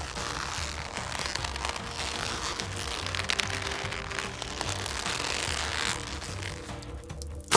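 Background music with a steady low beat, under a dense crackling noise that falls away about six seconds in.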